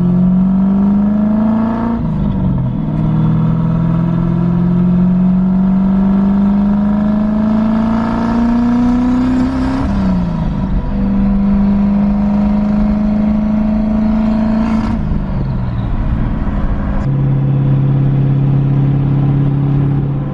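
Turbocharged Ford Crown Victoria V8 pulling on light throttle. Its pitch climbs steadily, then drops at each gear change, three or four times. The engine is running very rich on E85 while the tune is still being dialed in.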